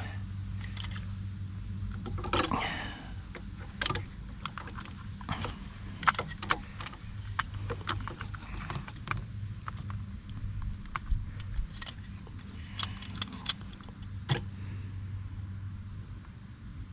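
Scattered light clicks and rattles of small metal and plastic parts being handled and fitted on a steering column, over a steady low hum.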